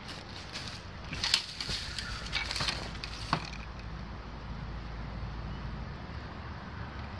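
Handling noises of a rider taking off a motorcycle helmet while sitting on a parked small motorbike: a few sharp clicks and knocks with rustling of riding gear in the first half, over a low steady hum.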